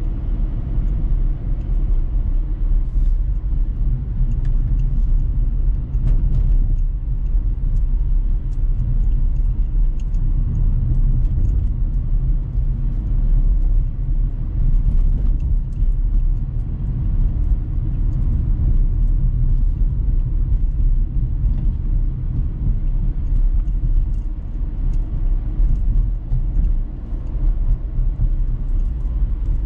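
Dacia Sandero Stepway 1.5 dCi four-cylinder turbodiesel being driven, heard inside the cabin: a steady low rumble of engine and road noise.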